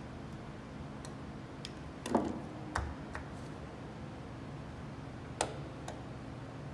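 Sharp metal clicks of a thin steel tool prying string coils off the tuning pins in the bass section of an antique Erard piano. About half a dozen separate ticks, the loudest about two seconds in with a brief ring after it.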